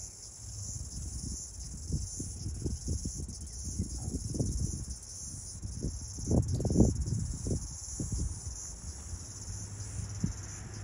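A steady, high insect chorus of crickets or cicadas chirring, with irregular low thumps and rustles underneath that are loudest a little past the middle.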